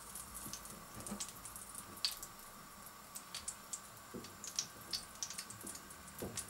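Faint, scattered wet clicks and ticks of slices of boiled beef udder being dipped in beaten egg and pressed into flour by hand, over a faint steady hum.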